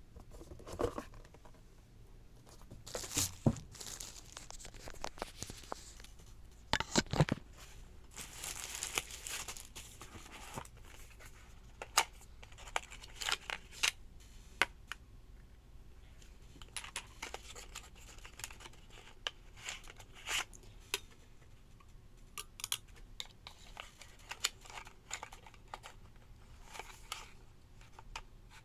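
Packaging being opened and handled by hand: irregular tearing and crinkling with scattered sharp taps and clicks.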